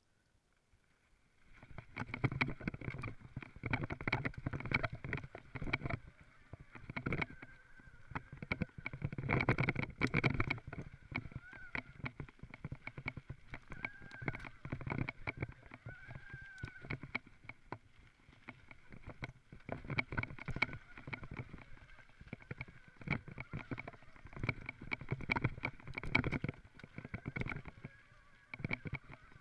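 Mountain bike riding fast down a rough dirt and stone forest trail: tyres running over the ground with dense rattling, knocks and clatter from the bike, starting about a second and a half in.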